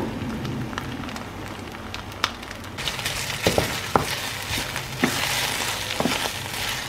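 Sauce sizzling in a hot frying pan while a wooden spoon stirs it, with scattered light knocks of the spoon against the pan. The sizzle grows louder about three seconds in, as the stirring starts.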